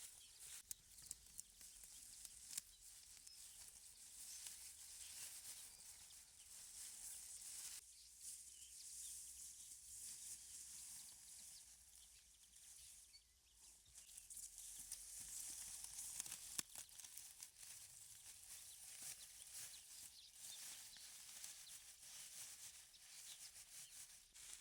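Near silence: a faint high hiss that swells and fades, with scattered small clicks and ticks.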